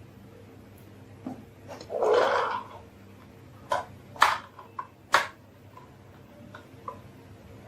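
Marbles clattering on a marble run and toy trucks: a short rattling rush about two seconds in, then four sharp clicks of marbles knocking together, spaced about half a second apart.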